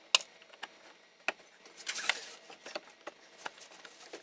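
Plastic EVAP hose connectors being pushed onto a charcoal canister and snapped into place by gloved hands: scattered small clicks and handling rustle, with a brief scuffle about two seconds in.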